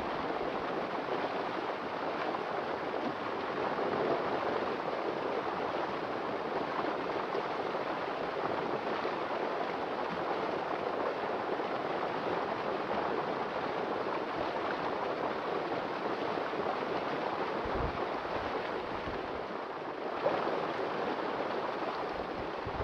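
Steady rushing of flowing water, an even hiss with no distinct strokes, with a brief low bump near the end.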